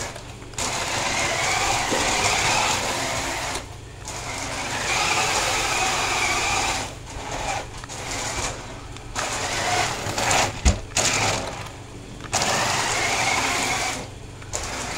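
Small electric RC drift car, a Jada Elite 2025 Ford Mustang GT wide-body, whining in repeated throttle bursts of a second to a few seconds as it is driven and drifted on a hard floor, the pitch rising and falling with the throttle. A sharp knock a little past two-thirds through, like the car striking something.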